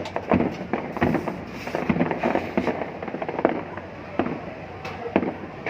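Fireworks display going off: a rapid, irregular run of bangs and pops that thins out in the second half.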